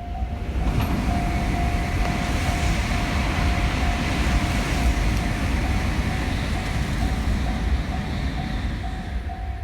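A train passes a level crossing with a wide, steady rush of noise that builds about half a second in and fades near the end. Under it, the crossing's electronic warning bell keeps ringing in a quick, evenly repeating single tone.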